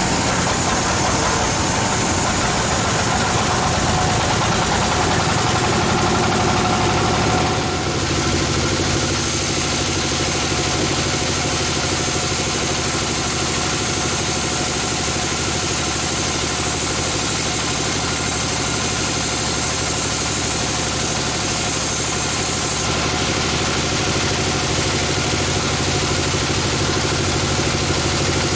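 Sawmill machinery running steadily with a constant mechanical hum. The tone shifts about seven seconds in and again near the end.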